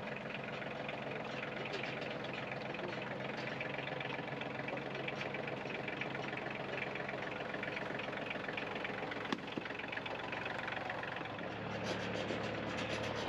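Sawmill engine running steadily during log milling, its note shifting a little near the end. A single sharp click about nine seconds in.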